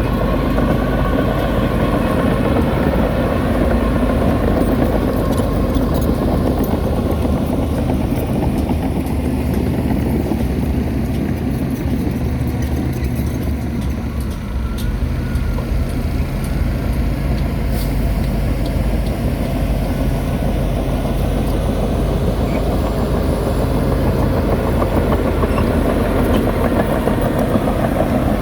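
Diesel engine of heavy earthmoving machinery running steadily, dipping briefly in level about halfway through.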